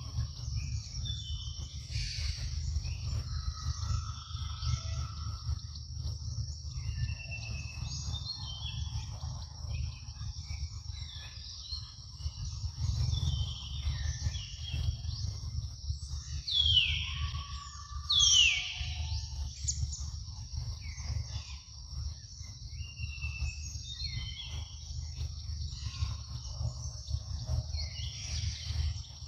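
Forest ambience: a steady high insect drone with scattered short bird chirps, and two loud calls, each falling in pitch and lasting about a second, one after the other about 17 and 18 seconds in.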